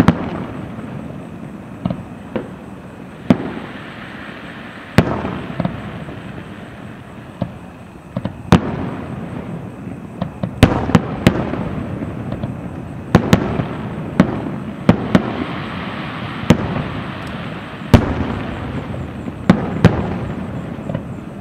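Aerial fireworks shells bursting: sharp bangs at irregular intervals, bunching closer together in the second half, each trailing off into a rumbling echo.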